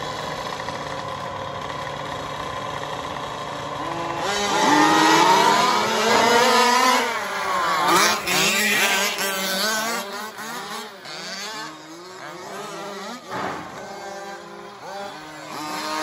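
Several remote-control 4WD racing trucks' motors whining and rising and falling in pitch as they accelerate and lift off. After a steady hum for about four seconds, the sound swells sharply and is loudest as the pack sweeps past close by around eight seconds in, then eases as they move away.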